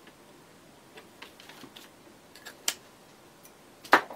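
Pen-style craft knife cutting through a paper napkin glued onto a wooden cutout: a scatter of faint small clicks and scratches as the blade snicks along the edge, then one sharp, louder click near the end.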